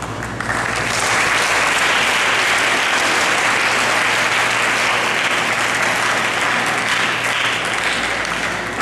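Audience of seated schoolchildren applauding: a dense, steady clapping that builds up within the first second and tapers off near the end.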